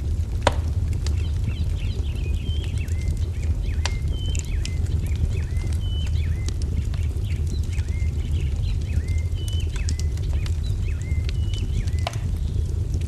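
Fire crackling, with a steady low rumble and scattered sharp pops, while small birds chirp repeatedly over it in quick short calls.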